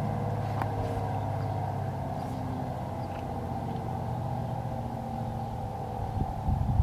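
Outdoor civil-defense warning siren sounding the attack signal: a steady sustained tone that slowly fades, with a few low bumps near the end.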